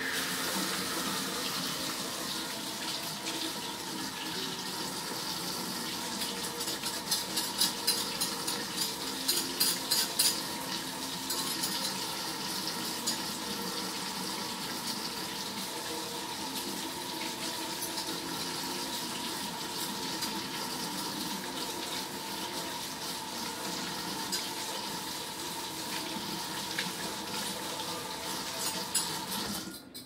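Kitchen faucet running steadily into a sink while dishes are rinsed by hand, with a cluster of clinks and knocks from about seven to eleven seconds in. The water shuts off near the end.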